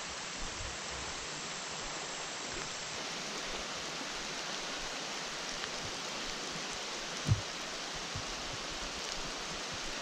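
Steady hiss of water outdoors: the creek running and the tail end of rain falling on it. A single short thump sounds about seven seconds in.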